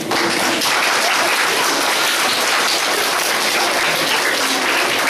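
Audience of schoolchildren applauding: many hands clapping in a dense, steady wash of applause.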